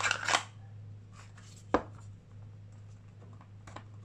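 Handgun being worked in and out of a heat-softened Kydex holster to loosen its retention. There is one sharp click just under two seconds in as the gun snaps into the holster, a few lighter plastic clicks near the end, and a low steady hum underneath.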